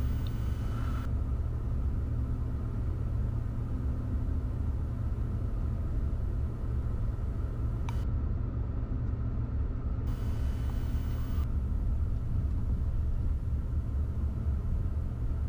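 Steady low cockpit rumble of a Gulfstream G200 business jet taxiing at idle thrust, with a faint steady whine. There is a single faint click about eight seconds in.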